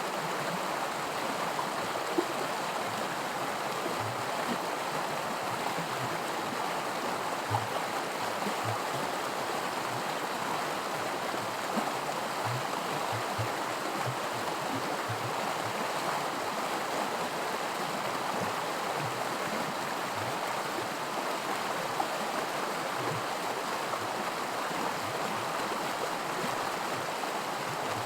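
A small creek rushing steadily over a riffle of miniature white water, with scattered low plops and gurgles.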